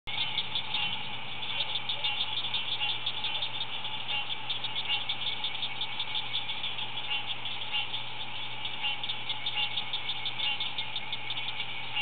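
Dense chorus of many pond frogs calling at once, countless short overlapping calls forming a continuous rapid chatter.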